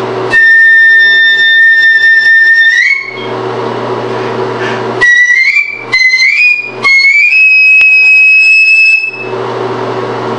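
Piccolo playing very high, loud held notes that slide upward at their ends: one long note, then a short gap and a few shorter notes each bending up, then another long held note near the end.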